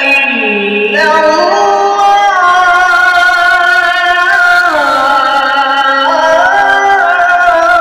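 A man reciting the Quran in melodic tajwid style, holding long ornamented notes that step up and down in pitch without a break.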